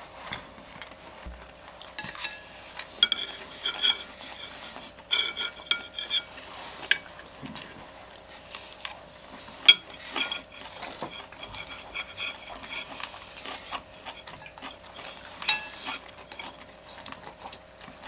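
Chopsticks clicking and tapping against dishes and food containers, with several short ringing clinks, over a faint steady hum.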